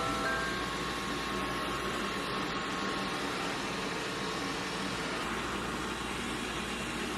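A machine running with a steady whooshing hum, even throughout.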